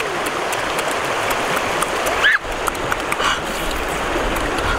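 Steady rushing of a fast-flowing river over rocks, with a brief voice sound about two seconds in.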